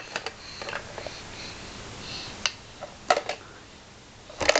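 Small plastic toy blocks clacking against each other and against a plastic bucket as a baby handles them and drops them in: a few irregular sharp clicks, the loudest a little after three seconds in.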